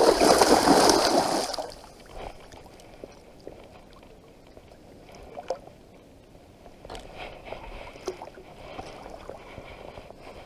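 Water splashing loudly for about a second and a half, then dying down to faint lapping and small clicks.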